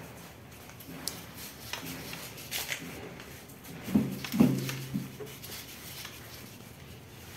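Electrostatic duster head on a wooden broom handle rubbing and bumping against a ceiling corner: light brushing, then two louder knocks about four seconds in, the second leaving a short low ring.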